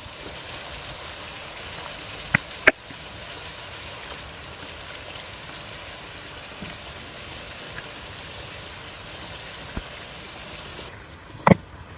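Chicken pieces sizzling in hot butter and onions in a cooking pot on a high flame, a steady frying hiss. A couple of sharp knocks about two and a half seconds in and another near the end; the sizzle drops away near the end.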